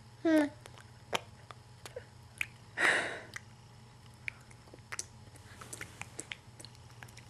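Baby's mouth and voice sounds: a short high squeal with a wavering pitch just after the start, a loud breathy burst about three seconds in, and scattered small lip smacks and clicks.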